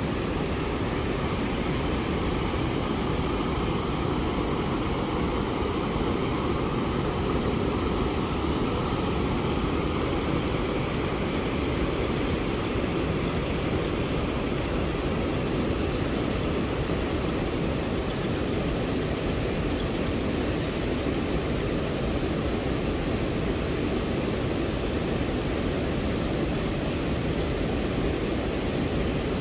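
Water rushing steadily, a continuous even roar with no breaks.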